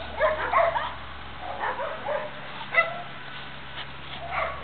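Small dogs giving short, high-pitched yips and barks, several in a row, the sharpest just under three seconds in.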